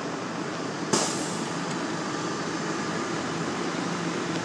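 Steady low mechanical hum of running machinery, with one sharp clack about a second in followed by a brief fading hiss.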